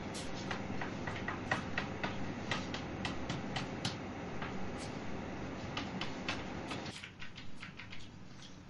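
Chalk writing on a blackboard: quick, irregular taps and scratches over a steady room hiss, thinning out near the end.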